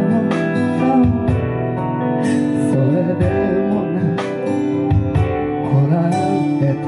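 A man singing a slow song live into a handheld microphone, with a guitar-like instrumental accompaniment under the voice.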